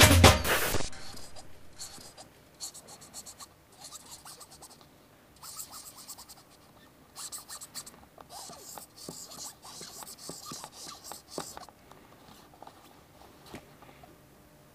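A marker pen scratching across a football in a series of short strokes as a face is drawn on it. A music sting ends just under a second in.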